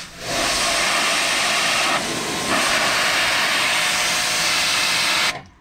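Pressure washer jet spraying a rusty, greasy truck frame: a loud, steady hiss that starts suddenly and cuts off sharply about five seconds in as the trigger is released.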